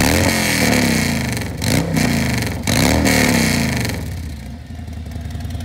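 Harley-Davidson bagger's Milwaukee-Eight 107 V-twin being revved by hand on its stand: three quick throttle blips, each rising and dropping back, then settling to idle.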